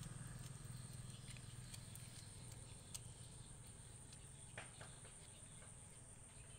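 Near silence: a faint outdoor background with a steady high insect-like drone and a low hum that fades away. A couple of faint soft clicks come about three and four and a half seconds in, from a cat chewing raw snakehead fish innards.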